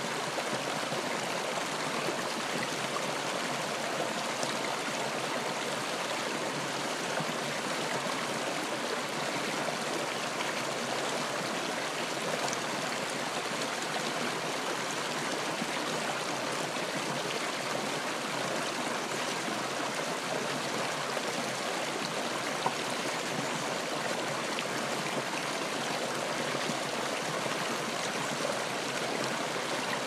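Shallow, rocky mountain stream running over stones, a steady rush of water. There is one brief click about two-thirds of the way through.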